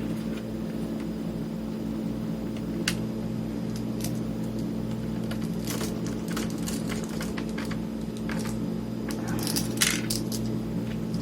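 Small metallic clicks and clinks from handling the wiring and connectors inside an opened Tascam Portastudio 414 MKII cassette multitrack during reassembly. The clicks are scattered and come thickest in the second half, over a steady low hum.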